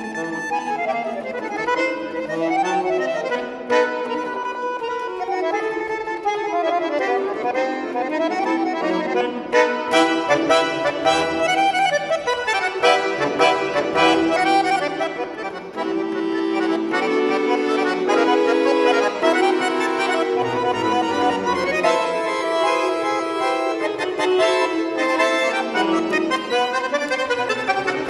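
Bayan, a Russian chromatic button accordion, played solo: a fast passage of running notes over held chords.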